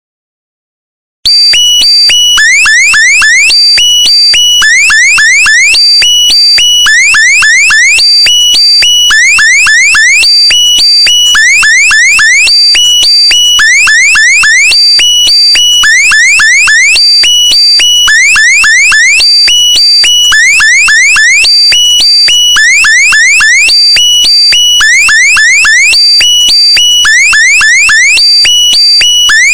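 Loud electronic alarm-like meme sound effect, starting about a second in and looping roughly every two seconds: steady high beeping tones with quick upward sweeps.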